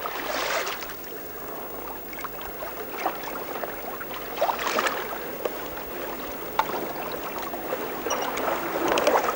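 Water rushing and splashing along the hull of a small wooden sailing boat under way, swelling about every four seconds as the boat meets the waves, with a few sharp clicks.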